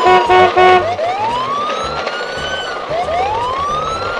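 Three quick horn toots, then a siren-like sound effect of slow rising whoops, two of them, each climbing for about a second, with background music underneath.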